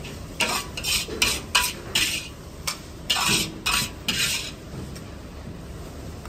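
A metal Chinese ladle scraping and clanking against a wok as the fried rice is scooped out: about a dozen short, sharp scrapes in quick succession, dying away after about four seconds.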